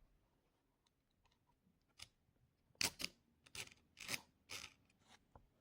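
Faint metallic clicks and short scrapes as the alligator clips and flexible arms of a soldering helping-hands stand are handled, about six in quick succession from about two seconds in.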